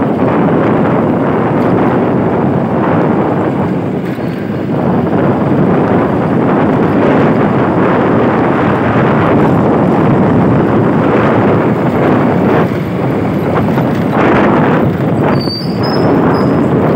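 Steady wind rush on the microphone mixed with the road and engine noise of a vehicle moving along a street.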